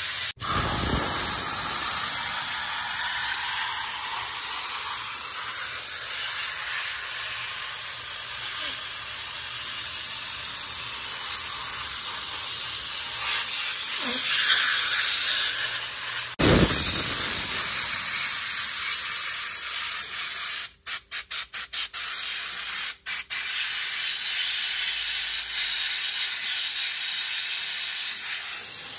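Steam cleaner's trigger gun jetting a steady high hiss of steam. There are two short thumps, one near the start and one about halfway through. A little over two-thirds of the way through, the hiss cuts out briefly several times in quick succession.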